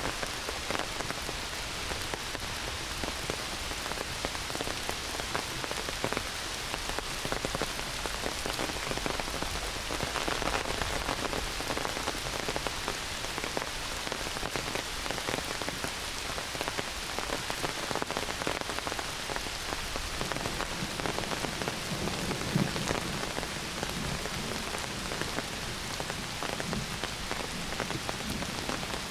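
Heavy rain pouring down steadily on a forest, with many single drops striking close by.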